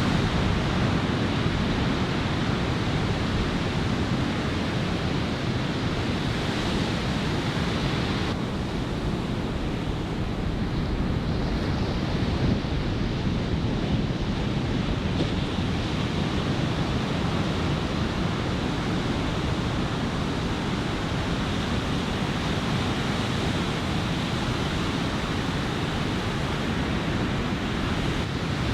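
Ocean surf from a typhoon swell breaking and washing on a sandy beach, a steady rushing noise, with onshore wind buffeting the microphone.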